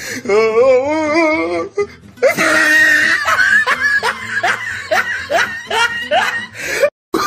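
Laughter in a looped, dubbed-in sound clip: a wavering, warbling voice for about two seconds, then a quick run of short rising 'ha' laughs. It cuts out briefly near the end, where the loop starts over.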